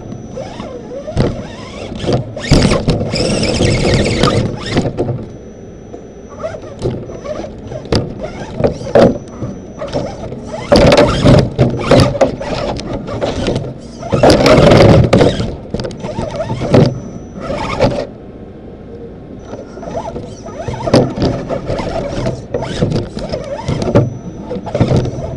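RC crawler driving, heard from inside its body shell: a steady high whine from the electric drivetrain that stops twice, under repeated loud clattering and knocking of the body and chassis.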